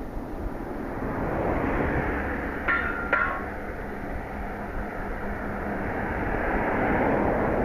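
Wind on the microphone and the rumble of an approaching local electric train, growing louder toward the end. About three seconds in come two short, high toots close together, which fit the train's horn.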